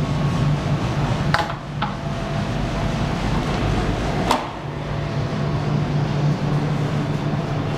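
Interior door knobs and latches clicking as doors are opened and shut: two light clicks about a second and a half in, a sharper one a little after four seconds. A steady low hum runs underneath and fades between the first clicks and the last.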